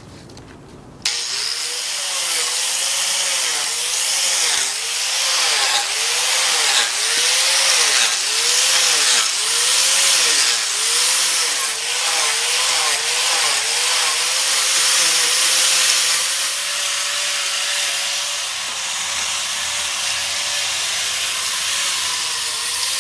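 Angle grinder with a 14-tooth Lancelot chainsaw-style carving disc switched on about a second in and carving into a wooden seat blank. Its motor whine dips in pitch over and over as the teeth bite into the wood, then runs steadier near the end, over a constant rasp of chips being torn off.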